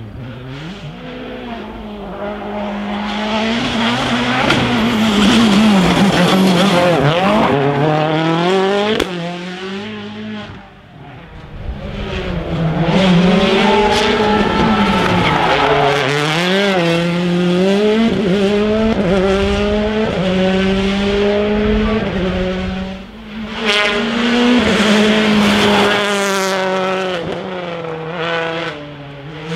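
Rally cars driven flat out on a special stage, engines revving hard and shifting, the pitch climbing and dropping with each gear change and lift. The sound falls away about ten seconds in and again a little past twenty seconds, and another car's engine builds each time.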